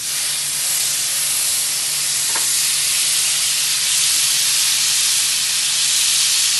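Butter sizzling as it melts in a hot wok: a loud, steady hiss.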